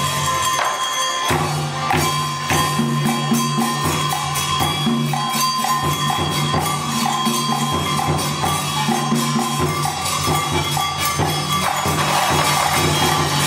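Traditional Vietnamese water-puppet theatre ensemble playing: drums and small percussion keep a steady beat under held melodic notes.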